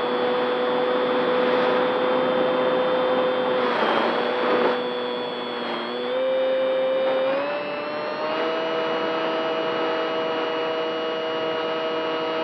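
Onboard sound of a radio-controlled model Spitfire's motor and propeller: a steady whine that steps up in pitch about six seconds in and again a second and a half later. A brief rush of wind noise comes about four seconds in.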